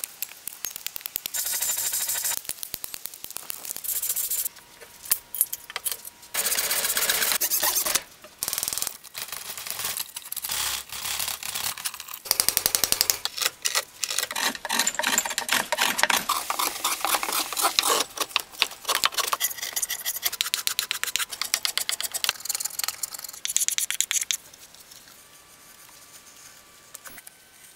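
Hand tools cutting cherry wood in a string of short edited clips: axe chops into a log, then a gouge cutting and scraping out the bowl's hollow in dense, rapid scrapes and clicks. Near the end, quieter paring cuts from a small gouge lift curled shavings off the outside.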